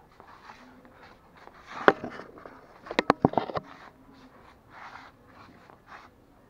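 Pomeranian puppy tugging and chewing a knotted rope toy: soft rustling and scraping, with a sharp click about two seconds in and a quick run of clicks and knocks about three seconds in.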